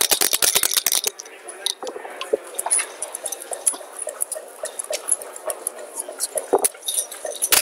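Backgammon dice rattling in a dice cup, a rapid run of clicks for about the first second, then the dice thrown onto the board. After that, scattered sharp clicks as the checkers are picked up and set down on the board.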